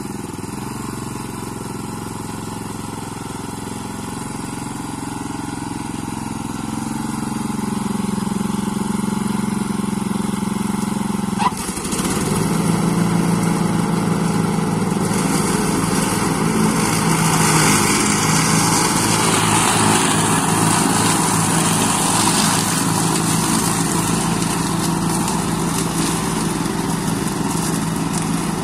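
Ride-on mower's 382 cc WOLF-Garten engine running steadily as the mower drives and cuts grass. About halfway a sharp click comes, after which the engine runs a little louder with more hiss over it.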